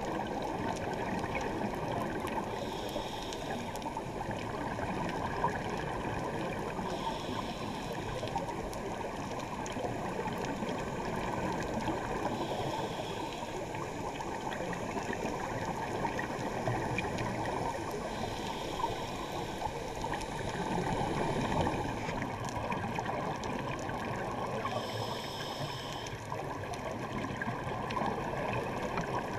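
Scuba diver's breathing through a regulator, recorded underwater: a continuous bubbling, rushing water noise, with a short hiss roughly every five seconds.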